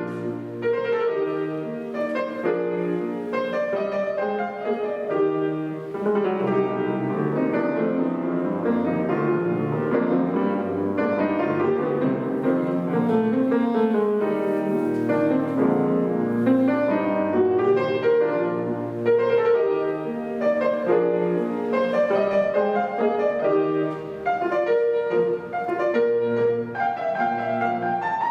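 Solo piano playing classical music: a continuous run of melody notes over repeated bass notes, without pause.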